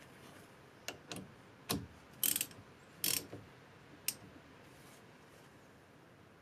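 Socket ratchet and metal hand tools clicking at the brake caliper's banjo bolt: a few single clicks, two short bursts of ratchet clicking around two and three seconds in, and a last click just after four seconds.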